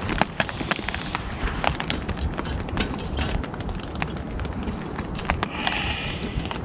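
Small wood fire crackling in a folding steel Hive stove, with frequent sharp irregular pops over a steady low rumble. Near the end a short rustle as a stick is pushed into the stove.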